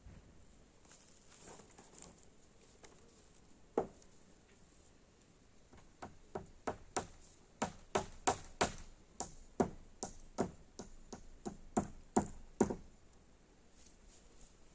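Hammering: a single blow about four seconds in, then a run of about twenty quick, sharp blows, roughly three a second, which then stop.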